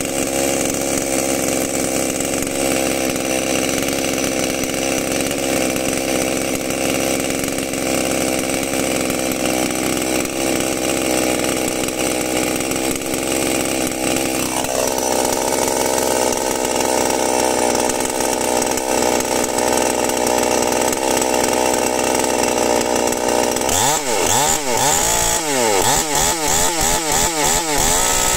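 Chinese-built two-stroke chainsaw engine running at a steady speed, its tone shifting once about halfway. In the last few seconds the revs rise and fall over and over.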